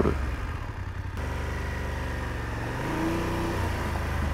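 BMW F750GS motorcycle's parallel-twin engine running steadily while riding, with a brief rise and fall in revs about three seconds in.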